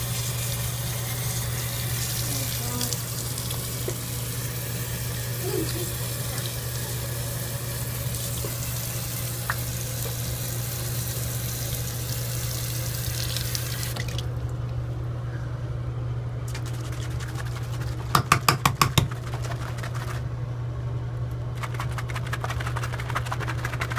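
Bathroom tap running steadily into a sink while a glue bottle's cap is rinsed under it, the flow stopping about two-thirds of the way through. Then a quick string of about six sharp pops, and near the end a rapid crackling.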